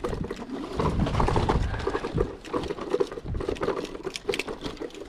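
Kick scooter rattling and clattering over rough, rooty ground, a dense run of irregular knocks and jolts from the wheels and deck.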